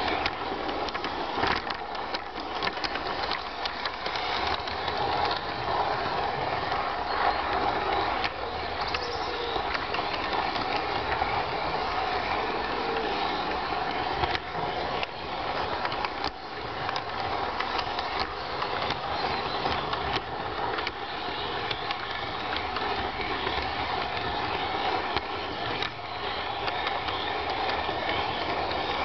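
An LGB G-scale garden railway train heard from on board, running steadily along the outdoor track. Its motor runs under a continuous clatter of wheels on rail, with frequent small clicks.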